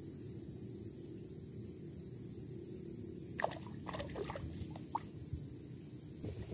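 Quiet outdoor background with a low steady rumble, and a quick run of about six small clicks and ticks a little past halfway.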